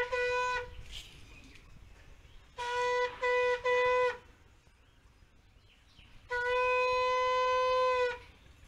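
Conch shell (shankh) blown in steady, single-pitched blasts: a short blast at the start, three quick blasts about three seconds in, then one long blast of nearly two seconds near the end.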